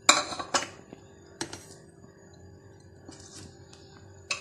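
Metal spoon clinking and scraping against a ceramic plate while tapping ground spices off into a tub of gram flour: three sharp clinks in the first second and a half, then a few faint taps.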